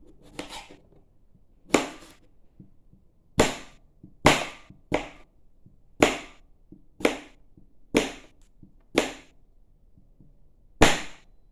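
A kitchen knife blade making about ten short, sharp strokes, irregularly spaced about a second apart, each dying away quickly.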